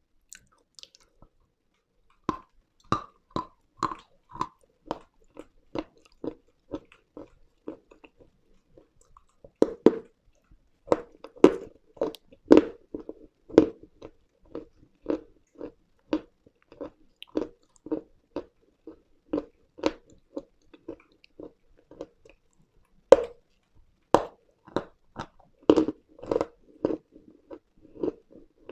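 Close-miked biting and chewing of brittle pieces of edible chalk or clay: a run of sharp, crisp crunches about two a second, with a few louder bites.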